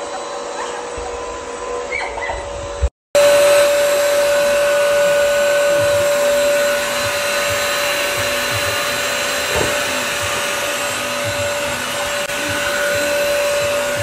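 Bissell Crosswave Pet Pro wet-dry vacuum and mop running, a steady motor whine over suction hiss. It drops out for a moment about three seconds in, comes back louder, and cuts off suddenly at the end.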